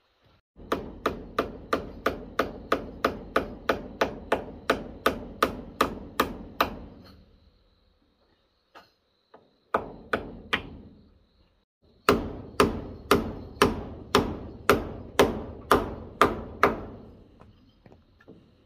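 Repeated heavy blows struck in a steady rhythm, about three a second, each with a short ringing tail. They come in a long run, a brief group of three, and a second long run.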